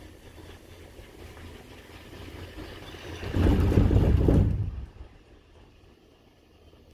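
Cable-car gondola's grip running over a support tower's sheave rollers: a low rumble that swells about three seconds in into a loud rumbling clatter for about a second and a half, then dies away. Heard from inside the cabin.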